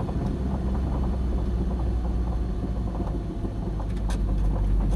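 Ginetta G40 race car's engine and drivetrain heard from inside the cockpit, running at low speed with a steady low rumble. It cuts off abruptly at the very end.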